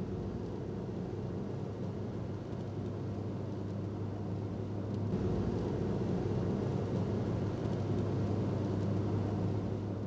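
A car driving, heard from inside the cabin: a steady low hum of engine and road noise, a little louder about halfway through.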